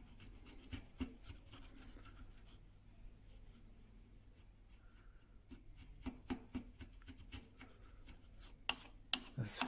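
Chisel pushed flat across a beech insert, paring hardened glue and a proud bump off the surface: faint scraping with light ticks, busier in the last few seconds.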